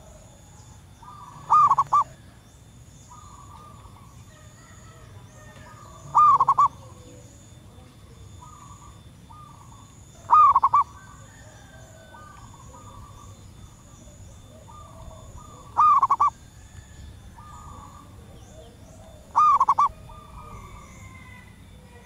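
Zebra dove calling: five short, loud cooing phrases spaced about four to five seconds apart, each a quick rising note run into a rapid trill of pulses. It is a female's call to males, as the uploader has it. Fainter calls of other birds fill the gaps.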